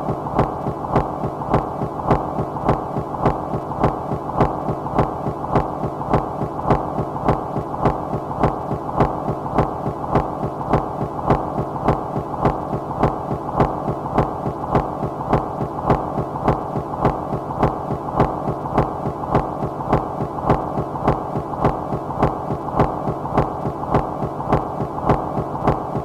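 Minimal rhythmic noise music: a dense, dull electronic drone with little treble, pulsing evenly at about one and a half beats a second without change.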